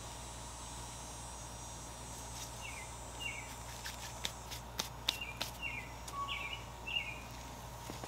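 Hands digging in loose garden soil and handling freshly dug potatoes, with a few sharp clicks and rustles in the middle. Over it, a bird gives a series of about six short, falling chirps, roughly two a second, above a steady low hum.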